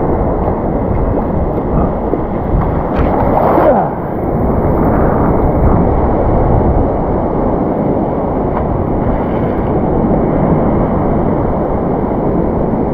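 Surf waves washing around a wader in the water, with steady wind buffeting the microphone; a brief louder rush of water about three seconds in.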